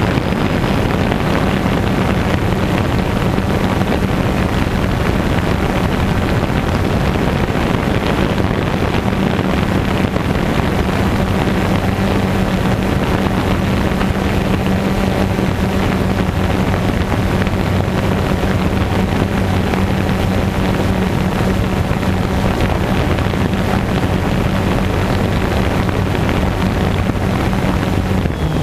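DJI Phantom 2 quadcopter's motors and propellers humming steadily as it hovers, with wind rushing over the microphone.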